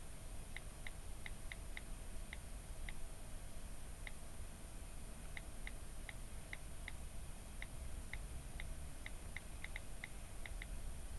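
Key-click sounds of an iPhone's on-screen keyboard as text is typed: short high ticks at an uneven typing pace, with a pause of a couple of seconds near the middle.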